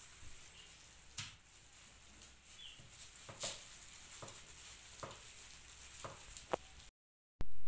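Chef's knife chopping down through a red onion onto a wooden cutting board: about six separate knocks, roughly one a second, as the onion is cut into sections for a blooming onion.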